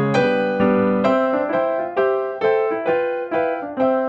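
Background piano music, single notes struck one after another and left to fade.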